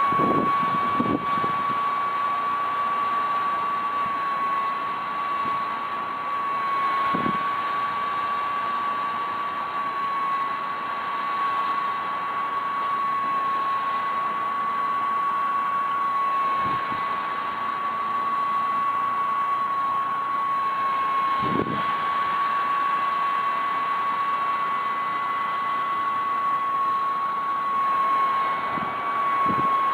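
Mini USB keyboard vacuum cleaner running: a small motor's steady high whine over the hiss of rushing air, with a few soft knocks now and then.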